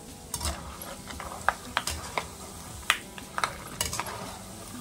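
Peanuts deep-frying in hot oil in a kadai: a faint sizzle with scattered sharp crackles and clicks as they are stirred with a wire spider skimmer.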